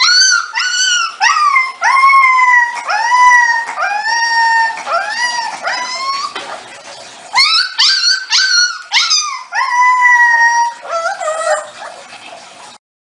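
Siberian husky puppy howling in a rapid string of short, high-pitched yowls, each rising and then falling in pitch, with a pause of about a second just past the middle.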